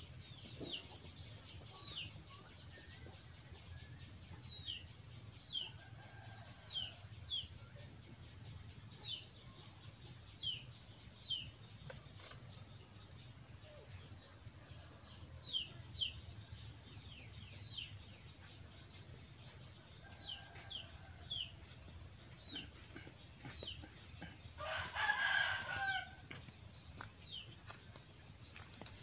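Outdoor ambience: a steady high-pitched insect drone with many short, falling bird chirps, and a rooster crowing once near the end.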